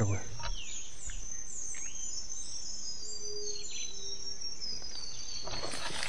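Forest ambience: a steady high insect buzz, scattered short bird chirps and a long high whistle sliding downward, with a dove's soft low coo twice a little past the middle. Footsteps rustle in leaf litter near the end.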